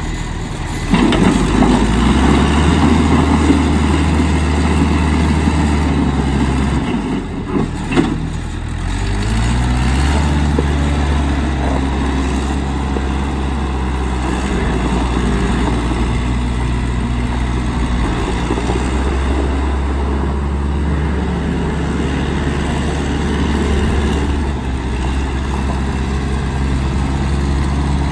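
John Deere 210C backhoe's diesel engine running. It comes up in speed and loudness about a second in, and its speed dips around seven to nine seconds in, with a sharp knock near the eight-second mark. It then runs steadily.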